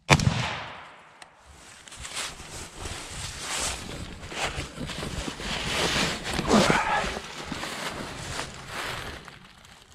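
A single rifle shot, sharp with a short echoing tail, then the shooter moving to the next firing position: feet and gear rustling through dry leaves with small knocks, and a brief squeaky rising-and-falling sound about six and a half seconds in.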